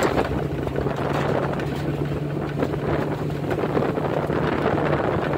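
Off-road vehicle's engine running at a steady pitch while driving, with wind noise on the microphone.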